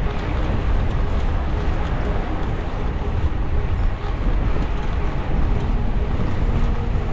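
Wind rushing over the microphone while riding a road bike along the road, a steady, even noise heaviest in the low end.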